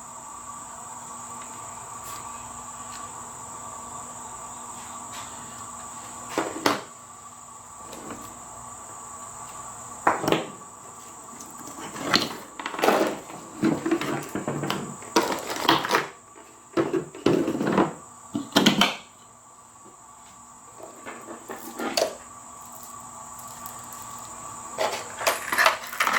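Handling noises: scattered clicks, knocks and rustles as small objects are picked up and set down, busiest in the middle and again near the end, over a steady faint high-pitched whine and hum.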